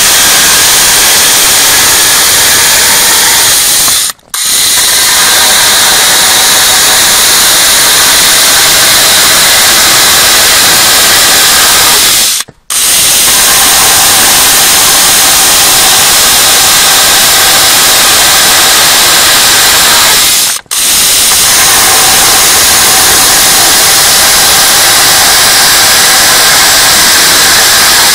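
Pellenc Selion battery-powered electric chainsaw cutting through a square wooden beam: a loud, steady sound of the motor and chain sawing through the wood, broken by three brief gaps.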